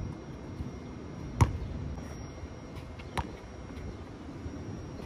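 A basketball bouncing on an outdoor concrete court: two sharp thumps, a loud one about a second and a half in and a softer one nearly two seconds later, over a steady low rumble.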